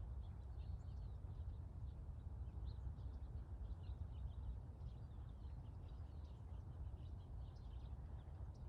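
Small birds chirping again and again over a steady low outdoor rumble.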